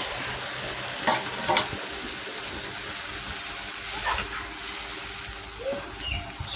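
Small fish curry sizzling and bubbling in an open pan just after spiced water has been poured into the hot oil, with a few knocks of a spoon or spatula against the pan.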